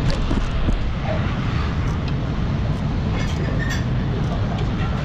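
A steady low rumble of background noise with a few light metallic clinks from tools being handled on the rear brake caliper.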